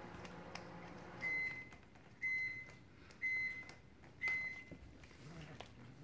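A low appliance hum stops, and an electronic beeper then sounds four short, high beeps about a second apart, like an appliance signalling that it has finished.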